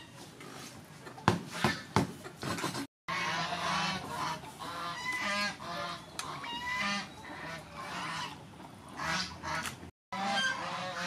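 Water splashing with a few sharp knocks as fish are handled in a steel bowl for the first few seconds. After a short break, a bird calls over and over in short pitched calls, over a low steady hum.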